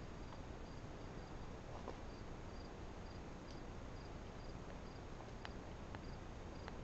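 A cricket chirping faintly and steadily, a little over two short high chirps a second, over a low background hiss, with a few faint clicks.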